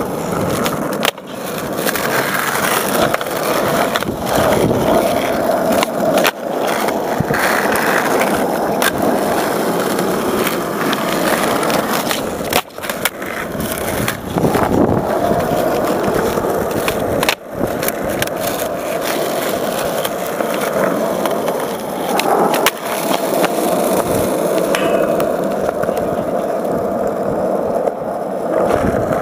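Skateboard wheels rolling over asphalt, broken every few seconds by sharp clacks of the board's tail popping and the deck landing as flatground tricks are tried.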